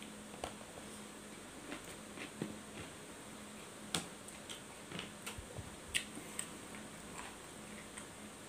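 Eating sounds, faint: scattered wet mouth clicks and smacks of chewing while fingers pick up rice from a paper wrapper, the sharpest clicks about four and six seconds in, over a faint steady hum.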